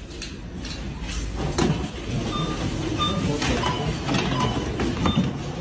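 Barcode scanner at a supermarket checkout giving several short beeps as a cashier scans items in quick succession, with goods clattering and knocking against the counter over a steady low rumble.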